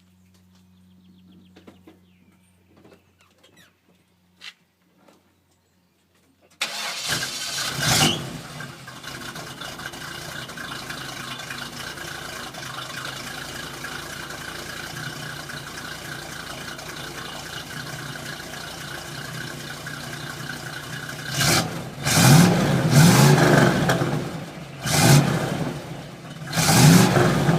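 Chevrolet 355 cubic-inch small-block V8 with a stainless-steel dual exhaust. After a few faint clicks, the engine starts about seven seconds in with a short rise in revs. It settles into a steady idle and is then revved in several short blips near the end.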